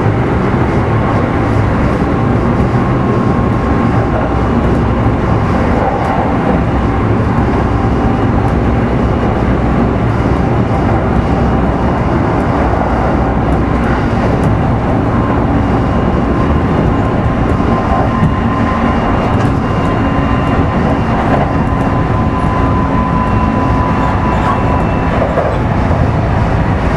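Kintetsu 5200 series electric train heard from inside motor car Mo 5257 while running at speed: a steady rumble of wheels on rail with a faint, even motor whine.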